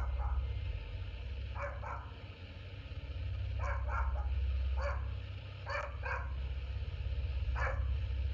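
A dog barking in short barks, often two in quick succession, every second or two, over a steady low rumble.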